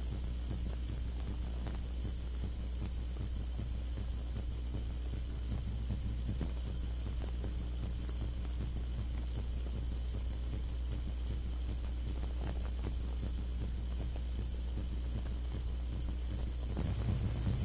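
Steady low electrical hum with faint hiss and a few faint clicks. This is the noise floor of a silent film transfer, with no sound from the game itself.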